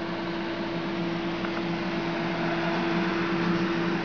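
Cooling fan of a CNC controller box running: a steady whir with a constant low electrical hum.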